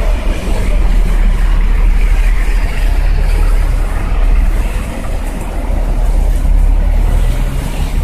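Traffic driving along a rain-soaked street: car and truck tyres hissing and splashing through standing water over a steady low engine rumble.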